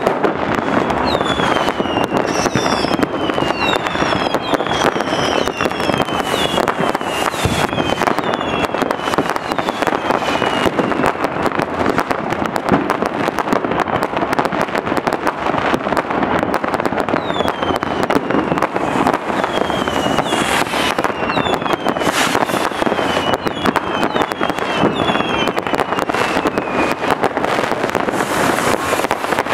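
Dense, continuous New Year's Eve fireworks and firecrackers going off close by, a steady crackling din with many short falling whistles, several at a time and in runs throughout.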